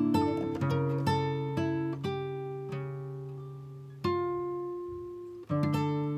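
Background music: acoustic guitar picking and strumming, each note ringing and fading, with fresh chords struck about four seconds in and again near the end.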